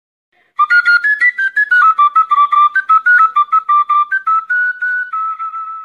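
A high whistle melody of quick, separately attacked notes that steps up and down, ending on a long held note.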